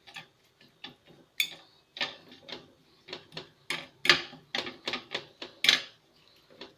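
A spoon scraping and knocking against a bowl while mashing sesame halva with lemon juice into a cream: irregular clicks and short scrapes, with a few louder knocks.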